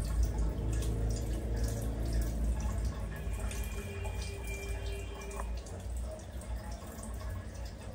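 Water running from a hand shower lying in a plastic bathtub, with dripping and small splashes as wet hands wash a baby macaque.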